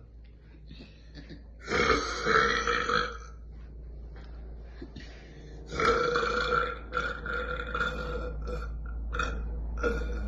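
A person burping loudly twice: first a burp of about a second and a half, then, after a pause, a longer drawn-out burp of about four seconds that breaks up into a string of short pulses towards its end.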